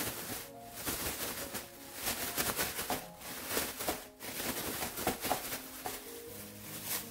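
Thin plastic bag crinkling and rustling in bursts as it is shaken and handled with shishito peppers and flour inside, coating the peppers in flour. Soft background music plays underneath.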